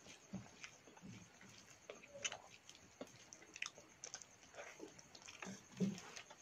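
Faint chewing and wet lip-smacking from someone eating rice by hand, with fingers mixing rice on a steel plate: a scatter of short, irregular smacks and clicks.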